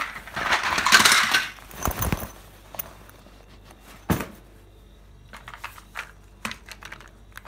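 A bag rustling as a hand rummages inside it, loudest in the first second and a half, then plastic supplement bottles being taken out and set down on a carpet: a couple of dull knocks about two and four seconds in, followed by scattered light clicks.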